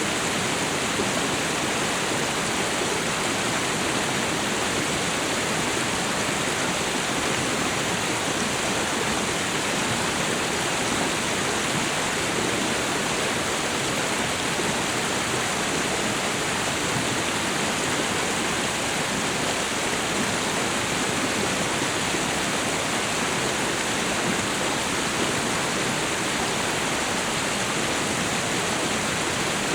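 A waterfall and river rushing: a steady, even roar of falling and flowing water.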